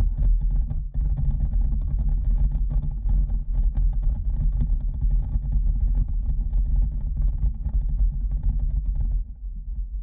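Slowed-down audio of Orbeez water beads falling down a plastic tube onto a phone: a deep, steady rumble with many faint taps, which drops away a little after nine seconds.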